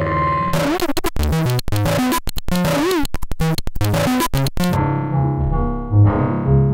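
Elektron Model:Cycles drum-machine pattern run through effects pedals. About half a second in, the pattern breaks into stuttering glitches with abrupt cut-outs and swooping pitch glides, through the Chase Bliss Bliss Factory fuzz. Near five seconds it turns into a duller, pitched, resonant pattern with low thumps, synthesized by the Time Shadows delay pedal.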